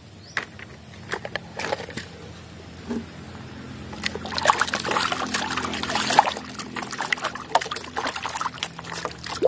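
Plastic toy hammer being swished and scrubbed by hand in a tub of muddy water. A few light splashes at first, then steady sloshing and splashing from about four seconds in.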